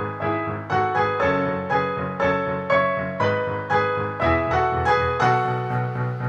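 Background music: a keyboard melody of evenly struck notes, about two a second, over held bass notes that change every second or so.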